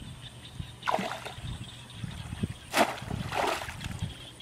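Water splashing and sloshing as a person wades and bends down in a shallow pond, with a few separate splashes, about a second in and twice near the three-second mark.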